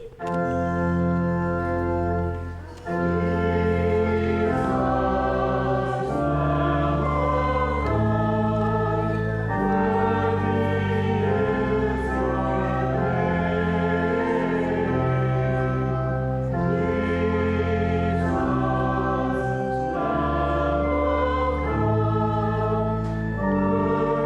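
Slow church hymn: sustained organ chords that change every second or two, with voices singing along.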